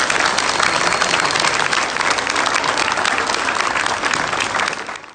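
Crowd applauding, a dense steady clapping that fades out near the end.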